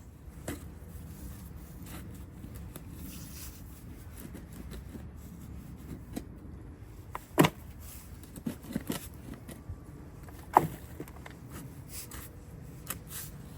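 Handling noises from objects being moved about: scrapes and a few small knocks, with two sharp knocks about seven and ten and a half seconds in, over a low steady rumble.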